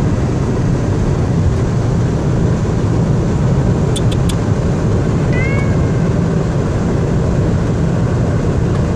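Steady road and engine noise inside a moving car's cabin, with three quick faint clicks about four seconds in and one short meow from a cat a little after halfway.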